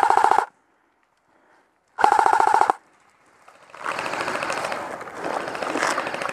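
Airsoft rifle firing two short full-auto bursts, a rapid even rattle of shots, the second about two seconds after the first. From about four seconds in, a rougher steady noise follows.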